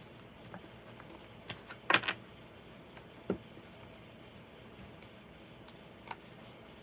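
A few scattered light clicks and taps of small objects being handled at a desk, loudest in a short cluster about two seconds in, over a faint steady room hum.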